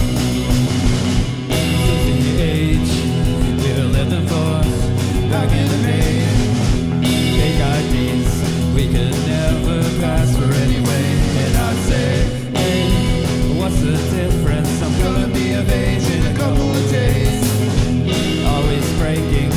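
A rock band playing: electric guitar, bass and drums, with singing over it.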